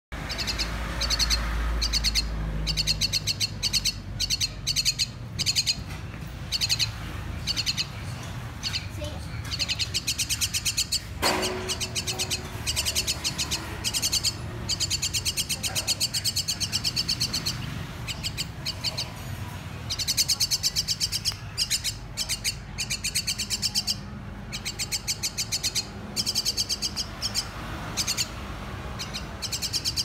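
Common myna calling in rapid runs of high, repeated notes, in bouts of a second or two over and over: begging calls as it gapes to be hand-fed.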